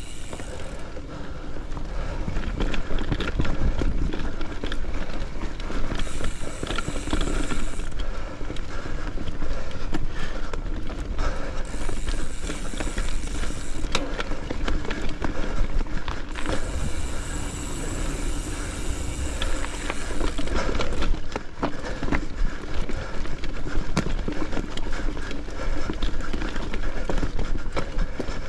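Mountain bike ridden over a dirt singletrack: tyre noise and the chain and frame rattling with many small knocks over bumps, over a steady low rumble of wind on the microphone.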